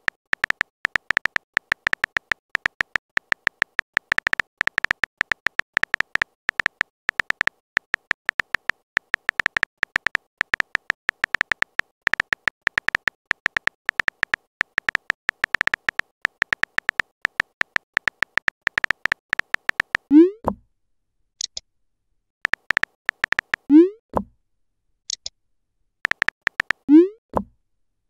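Texting-app typing sound effect: a fast, even run of keyboard clicks as a message is typed. Near the end come three short rising bloop tones, one for each message sent, a few seconds apart with brief typing clicks between them.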